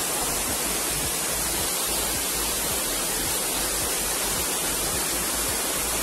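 Steady rush of a small waterfall pouring onto rock.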